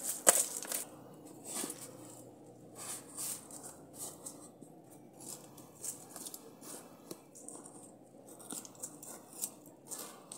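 Hands digging and scraping through loose, dry soil in a planter, with irregular soft crunches and rustles of soil and dry leaves. A sharp knock sounds just after the start.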